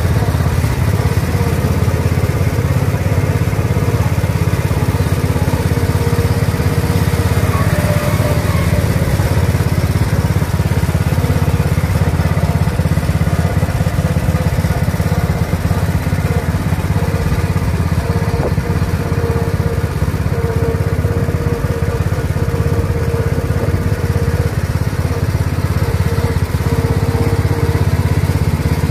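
Small engine of a Gould Safari Jeep ride car running steadily as the car drives slowly along its guide track.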